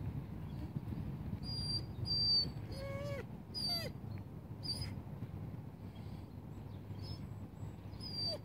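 German Shepherd puppy whining in a few short, high-pitched whimpers in the first half, while held on a short leash that stops it pulling ahead.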